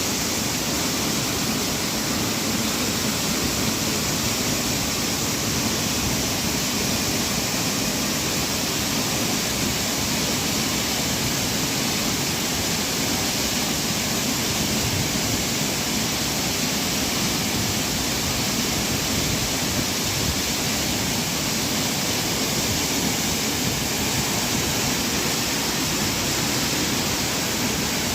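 A waterfall's water crashing down, a steady, even rushing noise that does not change.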